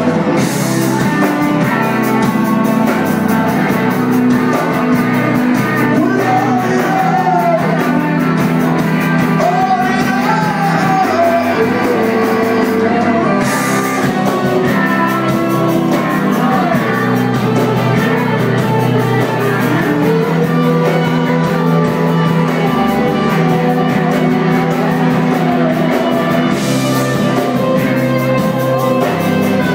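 Live rock band playing: acoustic guitar, electric guitar and bass with a voice singing the melody over them, heard from the crowd in a club room.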